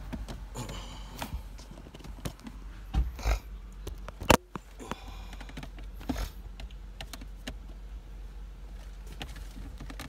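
Handling noise from a hand-held phone: scattered light clicks and rubbing, with one sharp click a little over four seconds in.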